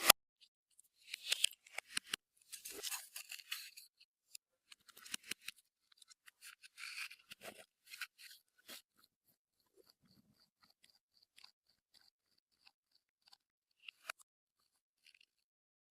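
Clear slime being worked by hand with makeup and glitter mixed in: sticky crackling and small wet clicks in two dense stretches, thinning to scattered pops in the second half.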